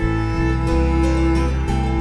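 Background music: slow, sad-sounding instrumental with sustained string-like notes and chord changes.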